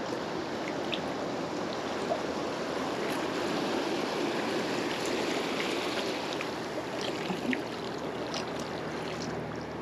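Shallow surf washing up over wet sand in a steady rush, with a few faint clicks over it.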